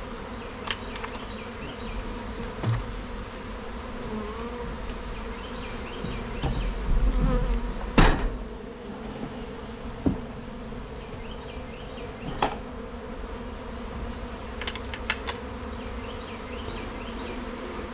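Honeybees buzzing steadily in a dense swarm, with scattered clicks and knocks from handling. A low rumble builds from about six seconds in and ends in a sharp knock at about eight seconds, the loudest sound.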